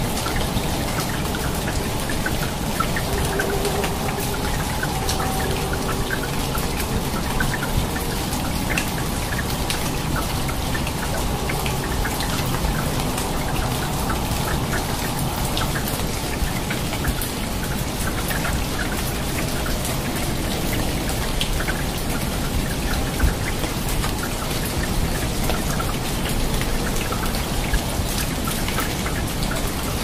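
Steady rain falling on rainforest foliage: an even, unbroken hiss with many separate drop hits scattered through it.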